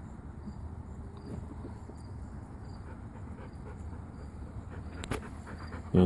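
Faint chirping of insects: a soft high pulse repeating about every three-quarters of a second over a low steady hum, with a single sharp click about five seconds in.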